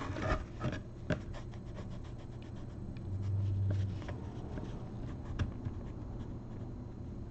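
Damp cloth rubbing over a painted board in short, quiet strokes, wiping chalk lines off dried acrylic paint. A brief low hum about three seconds in.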